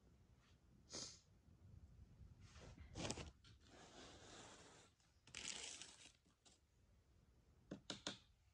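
Faint handling noise: soft rustling of a sleeve and hands with a few light taps and clicks, two close together near the end, as the potter works a tool at a water bucket beside the teapot body.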